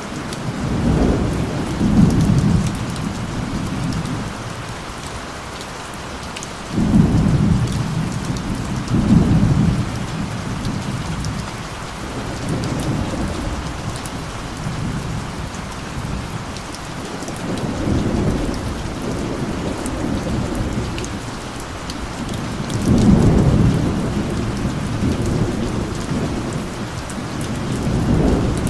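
Steady rain falling, with low rolls of thunder that swell and fade several times; one roll starts abruptly about seven seconds in.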